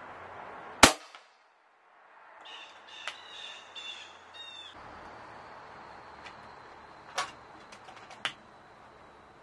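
A single sharp shot from a .357 big bore air rifle, the Snowpeak M60B, about a second in. A run of harsh repeated bird calls follows, then two smaller sharp cracks with a few light clicks near the end.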